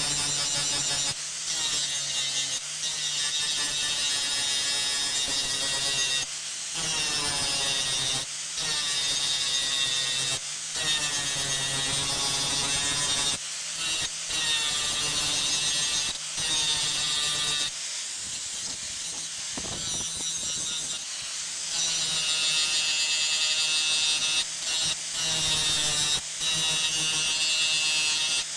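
A Makita angle grinder with a cutting disc cuts into the steel of an axe head. It gives a high whine whose pitch sags and recovers as the disc bites and eases off. The sound is broken by several short pauses.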